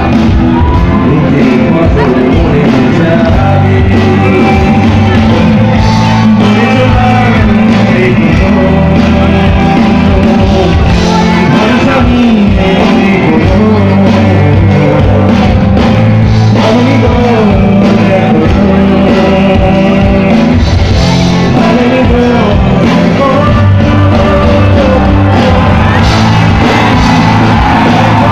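Live band performing a song with a male lead singer: electric guitars, bass, keyboards and drums under the sung melody, loud and unbroken, with shouts from the crowd.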